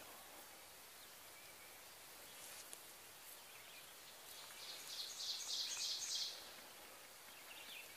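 Quiet outdoor background with a small bird's high, rapid trill, about five notes a second, lasting about two seconds and starting about four seconds in.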